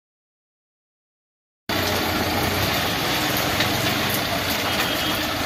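Silence, then about a second and a half in, steady street noise cuts in suddenly, with a motor vehicle engine idling under it.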